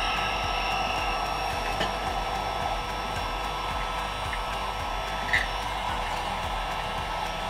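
MAILTANK SH-28 2000 W heat gun running steadily, its fan blowing hot air in an even rushing hiss with a faint steady whine. A small click is heard about five seconds in.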